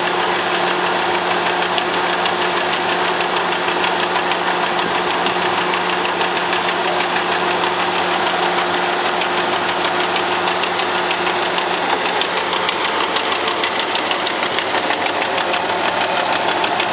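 Gasoline engine running a cedar shingle-cutting machine, with a fast, even chugging beat. About twelve seconds in, its low steady hum gives way to higher whining tones.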